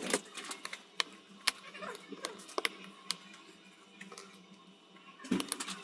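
Light, scattered clicks and taps of small phone parts being handled during a Samsung Galaxy Z Fold 5 teardown, with a short cluster of clicks near the end.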